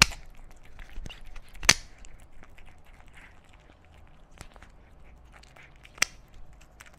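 Kitten eating flaked tuna close up: soft wet chewing, licking and mouth clicks, with three sharper clicks, one at the start, one just under two seconds in and one about six seconds in.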